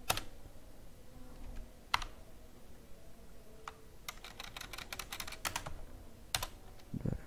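Computer keyboard typing: a few separate keystrokes, then a quick run of keys about four seconds in, and a last keystroke near the end.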